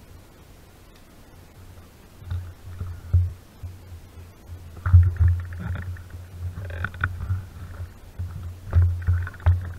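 Low rumbling thumps and a few sharp knocks from a wearable action camera being jostled and rubbed, coming in irregular bursts from about two seconds in.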